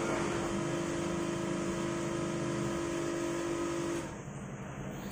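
A motor running steadily, a constant hum with a fixed tone over a low, wavering rumble; the tone cuts off suddenly about four seconds in while the rumble goes on.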